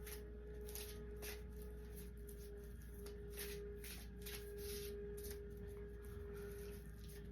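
Tarot deck being shuffled by hand: soft swishes of card against card, roughly once a second, over a steady low hum.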